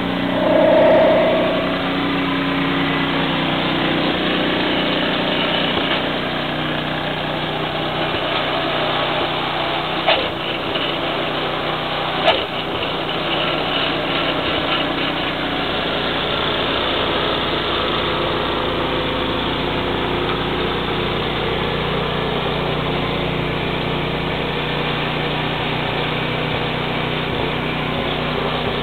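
Walk-behind petrol snowblower engine running steadily while clearing snow, with two sharp knocks in the middle. A short tone sounds about a second in.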